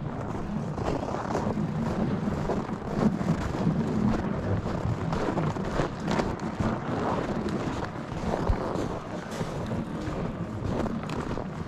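Wind rushing on the microphone over rough, uneven noise of travelling across snow-covered ice, with scattered irregular knocks.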